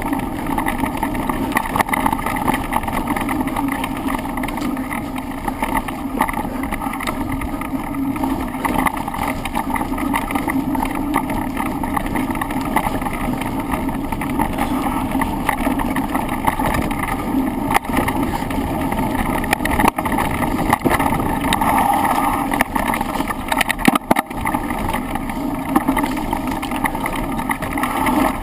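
A bike descending a trail, heard from a handlebar-mounted camera: steady wind rush and tyre rumble, broken by frequent rattles and knocks from the bike and its mount over rough ground.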